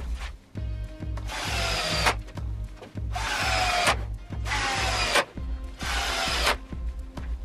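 Cordless drill-driver running four short times into birch plywood, its whine dropping in pitch during each run as the bit loads up. Background music with a steady low beat runs underneath.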